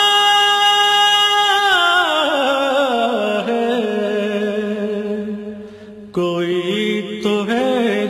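Singing from an Urdu devotional song: a solo voice holds a long steady note, then slides down in a slow, wavering, ornamented line. The singing fades briefly about six seconds in, then comes back abruptly.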